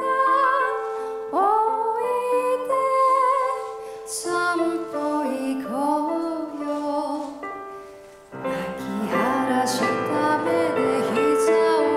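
A woman singing a slow song live into a microphone, with long held notes over instrumental accompaniment. About eight seconds in, a fuller, lower accompaniment comes in.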